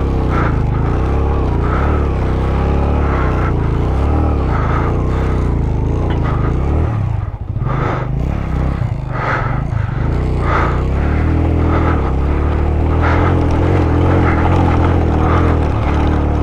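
Suzuki GS150SE's single-cylinder four-stroke engine running as the motorcycle is ridden over a rocky track, its pitch wavering up and down with the throttle. It drops briefly about seven seconds in, then picks up again.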